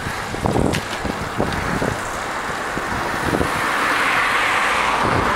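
Wind buffeting the microphone while riding a bicycle, a steady rushing noise with low rumbling gusts that swells louder over the last couple of seconds.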